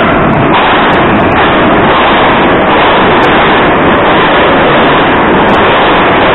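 Moscow Metro train pulling into the station and passing close along the platform, a loud, steady noise of wheels on rails and the moving cars.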